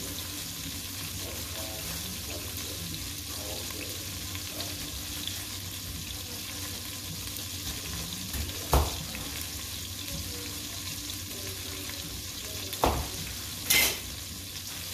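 Chicken pieces deep-frying in a pot of hot canola oil: a steady sizzle. A couple of short knocks come at the cutting board, and a brief sharp rustle near the end.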